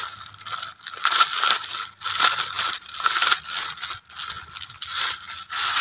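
A plastic courier packet and the clear plastic bag inside it being pulled open and handled by hand: irregular crinkling and crackling of thin plastic.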